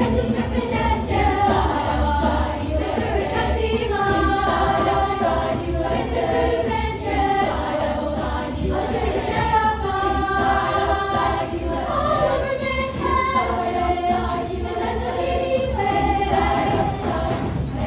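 A large youth choir singing an upbeat song together over musical accompaniment with a steady low beat.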